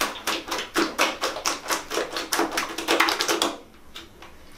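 Hands rapidly slapping and kneading wet glue slime spread across the floor, several sharp wet slaps a second, stopping about three and a half seconds in. The glue is just starting to set into slime under the activator.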